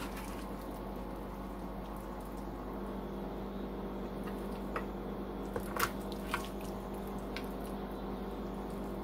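Serving spoon scooping soft baked rotini in Alfredo sauce out of a glass baking dish: soft squishing, with a few light clicks of the spoon against the dish around the middle, over a steady background hum.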